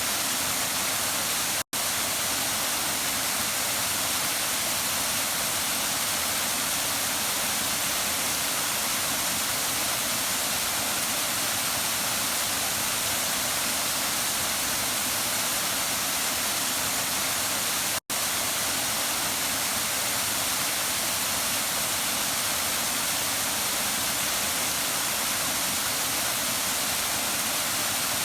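Waterfall: a steady rush of falling water, bright and hissy. The sound drops out for a split second twice.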